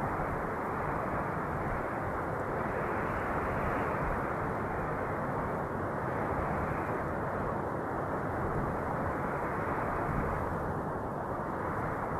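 Steady wind noise, a low, even rushing with no distinct gusts, brightening and dulling slightly every few seconds.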